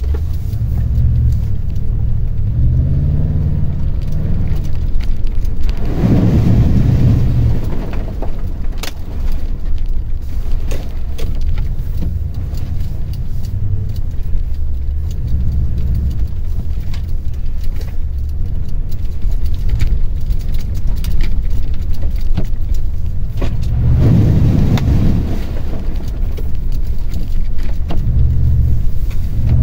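Toyota TRD Pro truck's engine running under varying throttle over rough off-road ground, its low drone rising and falling in pitch. It surges louder about six seconds in and again near the end. Scattered knocks and rattles come from the truck moving over the bumpy trail.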